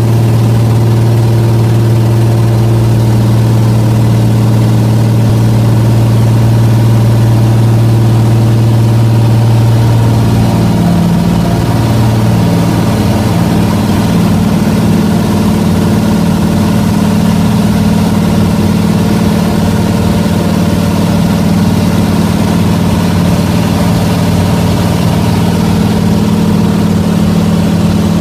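Floatplane's propeller engine running at full takeoff power, heard from inside the cockpit as a loud, steady drone. About ten seconds in, its pitch shifts higher and then holds.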